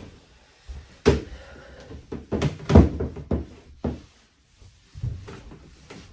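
A series of knocks and thumps in a small, echoey room, the loudest cluster about two and a half to three and a half seconds in.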